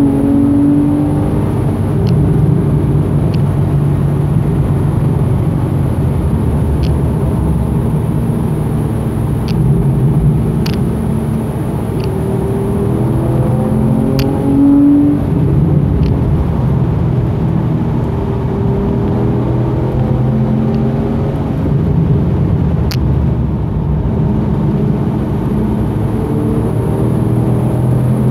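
Porsche 991.1 Carrera's flat-six engine heard from inside the cabin, its pitch rising and falling again and again through gear changes and corners, over steady tyre and road noise. A few sharp ticks stand out here and there.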